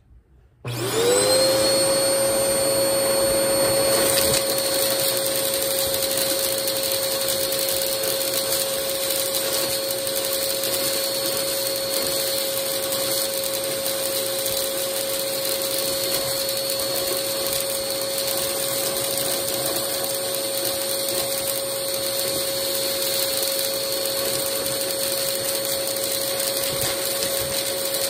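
Vacmaster vacuum switched on about a second in, its motor spinning up with a brief rising whine and then running at a steady pitch. Its tube sucks crunchy foil scraps, bottle-cap bits and beads up from a heap.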